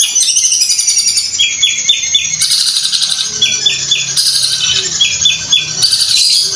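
Caged Madura long-tailed shrike (cendet) singing a fast, unbroken, sewing-machine-like chatter, high in pitch. Short runs of three or four lower notes break in every second or so.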